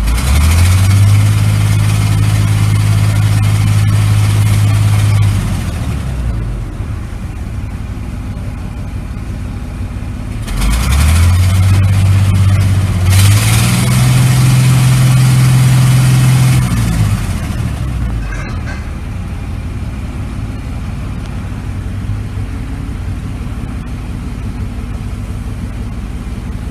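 International DT466E inline-six turbodiesel, heard from inside the cab, revved up from idle and held for about five seconds, then dropped back to idle. A few seconds later it is revved again, climbing in two steps to a higher, held speed for several seconds, then settles back to a steady idle. It sounds like a healthy running engine.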